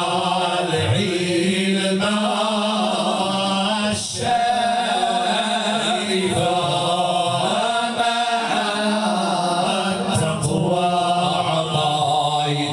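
A group of men chanting madih, devotional praise songs, a cappella with no instruments. Several voices sing together into microphones: a melodic line moves above a steady held low note.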